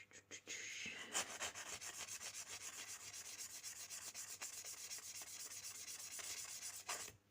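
Pocket knife blade stroked quickly back and forth on a multi-grit nail file, a steady scratchy rubbing of several strokes a second. A few scattered strokes come first, then it settles into a fast rhythm about a second in and stops just before the end.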